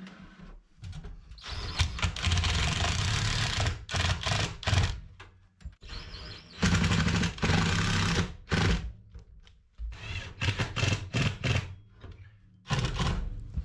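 Cordless drill driving screws, running in bursts of about two seconds and shorter, with sharp clicks and knocks in between.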